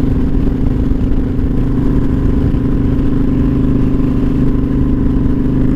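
Kawasaki Vulcan 900's V-twin engine running at a steady speed while the motorcycle cruises, with wind buffeting the microphone.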